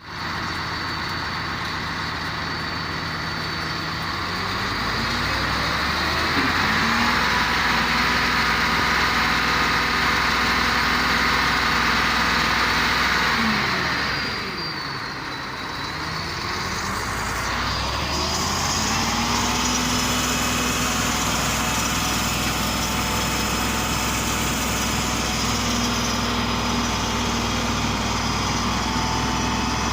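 Heavy diesel engine running. It revs up about five seconds in, drops back to a low speed around fourteen seconds, then revs up again and holds steady, with a thin high whine above it.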